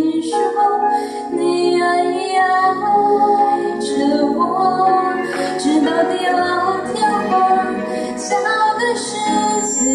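A woman singing a Mandarin pop ballad into a handheld microphone over instrumental accompaniment.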